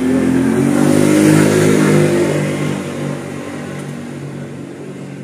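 A motor vehicle's engine going past, loudest about a second in and then fading away.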